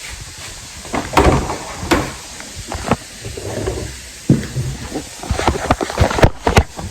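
A series of irregular knocks, bumps and clatter, the sound of things being handled and set down, with the loudest knocks near the end.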